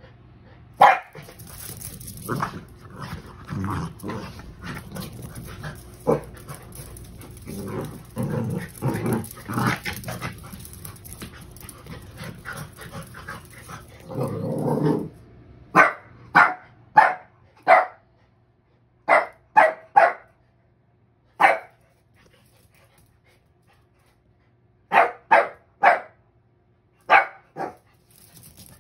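Two dachshunds tussling: a stretch of rough growling and scuffling, then from about halfway a dozen or so sharp barks in quick bunches of two or three.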